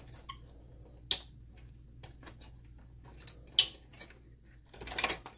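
A few sharp clicks and light rattles of a sheet-metal shield bracket being worked loose from inside a DLP projector, with one louder click about three and a half seconds in and a short cluster of rattles near the end.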